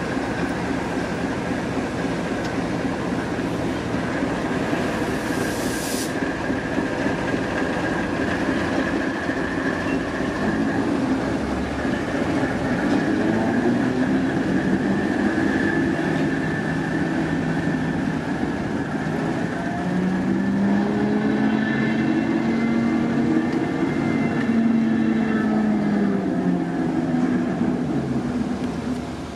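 Heritage diesel locomotive working a train, a continuous loud rumble with a steady high tone over it. About six seconds in there is a short sharp click, and in the second half the engine note rises and falls.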